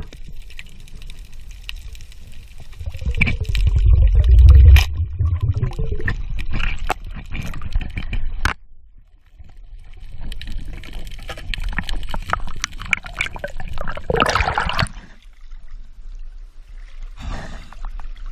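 Water gurgling and sloshing around an underwater camera as a diver swims. There is a heavy low rumble a few seconds in and a sudden louder rush of water noise about three-quarters through.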